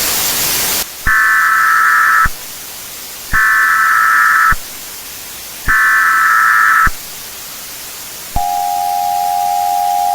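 Emergency Alert System broadcast tones: a moment of static, then three SAME header data bursts of about a second each with short gaps, then, about eight seconds in, the steady two-tone EAS attention signal starts.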